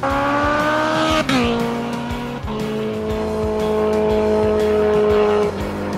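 Motorcycle engine running at high, steady revs, its pitch stepping down about a second in and again about two and a half seconds in, then easing back near the end.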